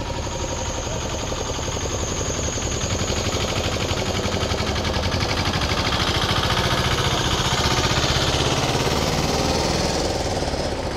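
Motor vehicle engine running with a rapid, even pulsing beat, growing louder to about eight seconds in and then easing off.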